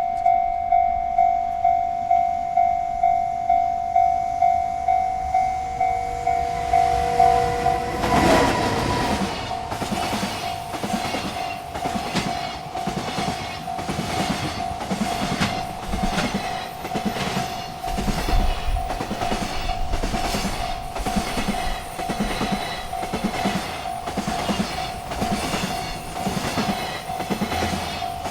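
Railroad crossing bell ringing steadily at about two strikes a second; about eight seconds in, a freight train arrives and rolls past, its wagons' wheels clacking over the rail joints in a regular rhythm while the bell keeps ringing.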